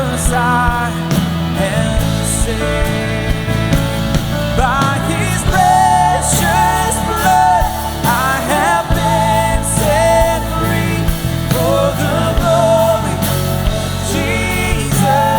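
Worship band playing a rock-style song, with a voice singing over steady drum hits.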